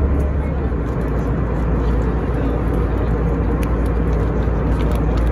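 Steady low roar inside the cabin of an Airbus A320-214 in cruise: its CFM56 turbofan engines and the airflow over the fuselage, heard from a window seat over the wing.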